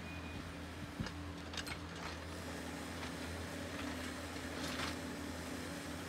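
Compact excavator's diesel engine running steadily while it works, with a few short knocks in the first two seconds and again near the end.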